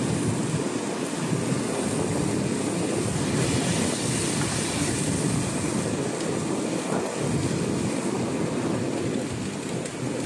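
Diced chicken sautéing in a stainless steel frying pan: a steady sizzle.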